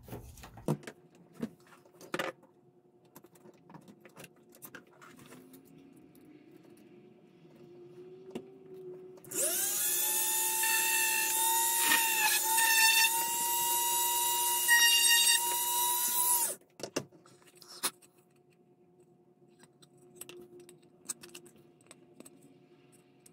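Hand-held rotary tool with a drill bit spinning up to a high, steady whine about nine seconds in and drilling a hole through a display-stand base, the pitch dipping briefly as the bit bites, then cutting off about seven seconds later. Light handling clicks before and after.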